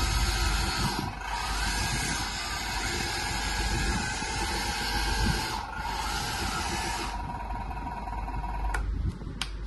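Electric hydraulic pump and motors of a 1/14 scale RC hydraulic bulldozer running with a steady whine and hiss. It dips briefly twice and falls away about seven seconds in, and a few sharp clicks follow.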